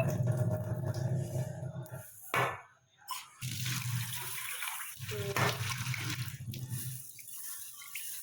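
Water running from a kitchen tap while black lentils are rinsed and set in a pressure cooker. The flow stops about two and a half seconds in, starts again about a second later, and dies away about seven seconds in.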